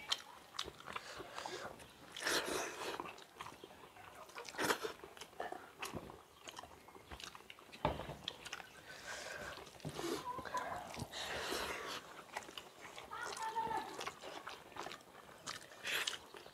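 Two people eating rice and fish curry with their hands: wet chewing and lip-smacking, with fingers squishing and mixing rice on steel plates, in many short irregular clicks and smacks.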